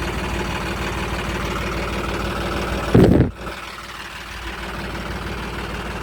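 A John Deere 5210 tractor's diesel engine running steadily. About three seconds in there is a loud, brief low burst lasting about a third of a second, after which the engine sound runs a little quieter.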